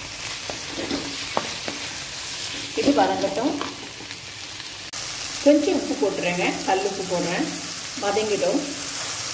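Sliced onions and tomatoes sizzling in oil in a kadai while being stirred with a wooden spatula. The sizzle grows louder about five seconds in.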